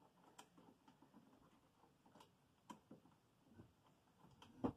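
Near silence broken by a few faint, scattered clicks and taps of a stage light and its clamp being handled on a ceiling truss, with a sharper click just before the end.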